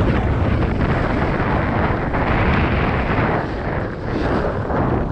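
Wind buffeting the action camera's microphone as a snowboard slides and scrapes over packed, groomed snow at speed.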